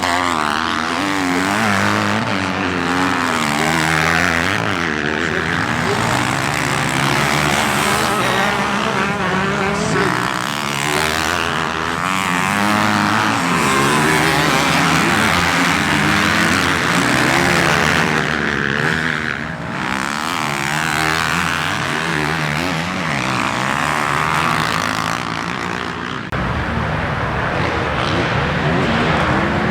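Several motocross bikes racing, their engines revving up and down in overlapping, constantly shifting pitches. The sound changes abruptly about three-quarters of the way through.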